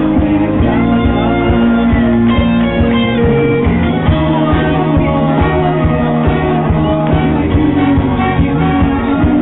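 A band playing rock music, with guitar to the fore.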